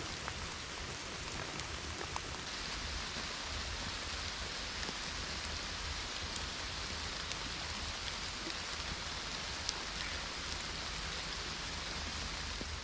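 Steady rainfall, with scattered drops ticking on a surface.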